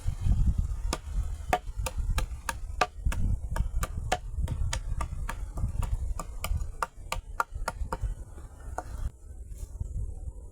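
A run of sharp chopping knocks, about three a second, stopping about nine seconds in, over a low rumble of wind on the microphone.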